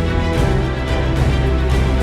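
Background music with sustained chords and a deep bass line, changing chord about half a second in.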